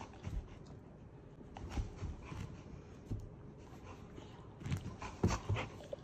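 A boxer and a labrador playing tug-of-war with a rope toy on a couch: irregular soft thumps and rustles from the tussle, with dog noises, busiest near the end.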